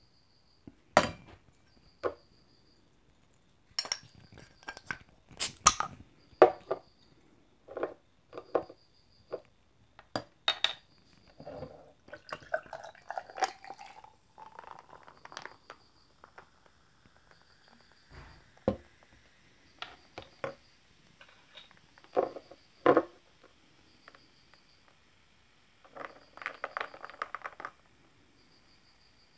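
Glass bottle and drinking glass being handled, with a series of sharp clinks and knocks. About twelve seconds in, apple juice is poured into the glass, the pitch rising as it fills. Near the end comes a quick run of small clicking sounds. A faint high chirp repeats every couple of seconds throughout.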